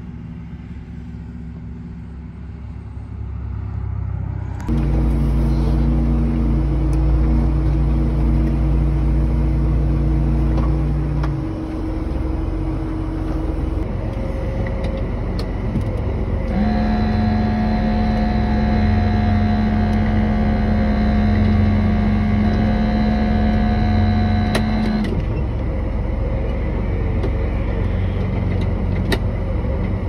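Engine and road noise inside a moving pickup cab. After a sudden cut about five seconds in, a farm tractor's engine runs steadily, with steady whining tones over it that shift twice.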